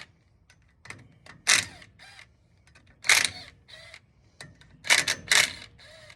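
Sharp metallic clinks and clatters of small steel hardware and hand tools being handled while unbolting a hub locking plate: four loud clatters spaced about one to two seconds apart, with lighter ticks between them.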